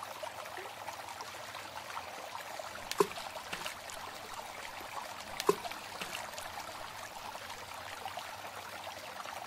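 Water running and trickling steadily, with two short, sharp plinks about three and five and a half seconds in.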